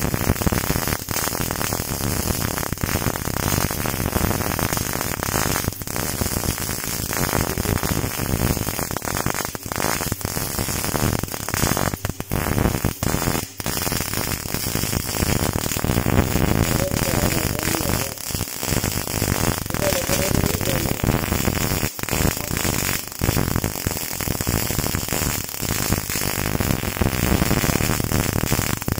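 MIG welding arc crackling steadily, with a few brief breaks where the arc stops and restarts.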